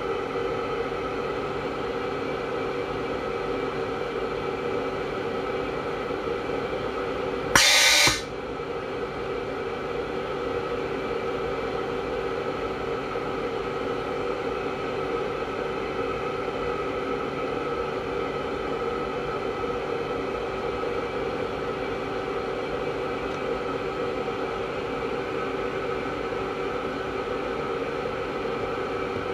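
Steady machine hum, broken once about seven and a half seconds in by a loud hiss lasting about half a second: a compressed-air atomising nozzle firing a short pulse of mist into the aeroponic root chamber.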